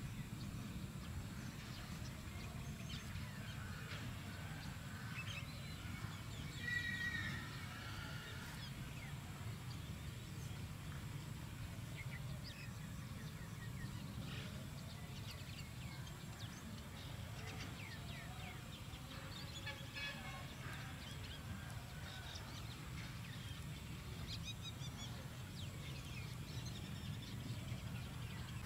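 Outdoor rural ambience: scattered short bird calls over a steady low rumble, with one louder call about seven seconds in.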